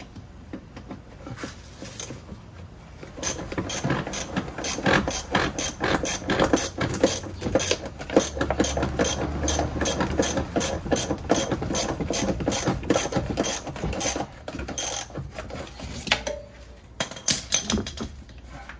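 A ratchet wrench clicking in quick, even strokes for about ten seconds as a suspension bolt is worked, with a few more clicks near the end.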